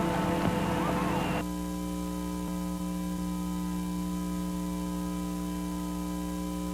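Loud, noisy, garbled audio cuts off abruptly about a second and a half in. It gives way to a steady electrical hum, a buzz of many even tones like a dead broadcast signal.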